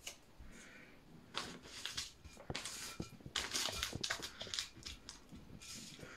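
Masking tape being pulled off the roll and pressed around the rim of a terracotta plant pot: crackly peeling and rustling with sharp little clicks. It starts about a second and a half in and is loudest between three and four seconds.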